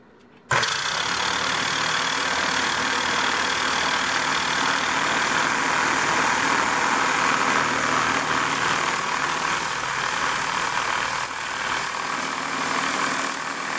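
Air pump switched on about half a second in and running steadily, its motor hum under a hiss, blowing air through a ratchet wrench's mechanism to clear the dust out of it.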